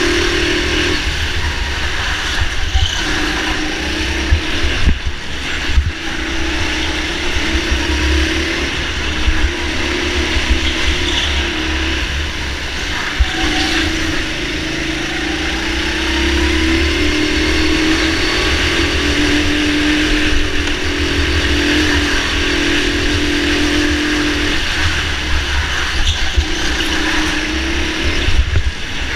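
Go-kart's motor running hard around a track, its pitch rising and falling with the throttle and dropping away briefly several times, over a low rumble and rushing hiss of wind on the microphone.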